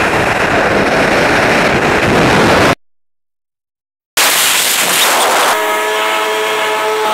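Loud rushing freefall wind on the camera's microphone, which cuts out completely for about a second and a half. After it resumes, the drone of an aircraft engine with several steady held tones comes in over the noise near the end.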